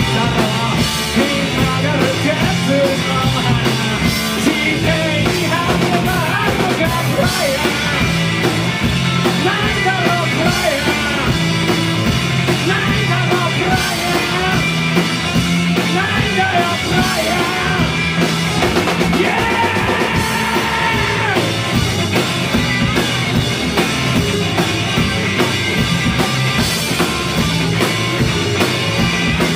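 Live rock band playing loudly: drum kit, bass and electric guitars in a fast garage-punk style.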